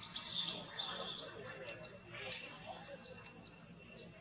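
A bird chirping: a quick series of short, high, swooping notes, about three a second.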